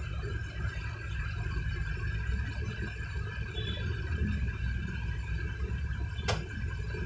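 Diesel close-van truck engine idling, heard from inside the cab as a steady low rumble. A single sharp click about six seconds in.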